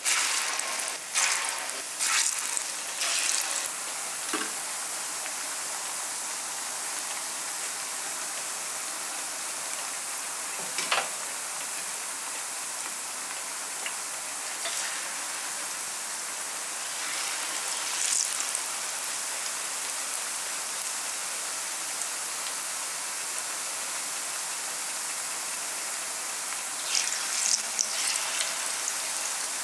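Thin plantain slices frying in hot oil in a pan: a steady sizzle, with louder bursts of crackling as fresh slices are dropped into the oil, several in the first few seconds, a couple more midway and again near the end.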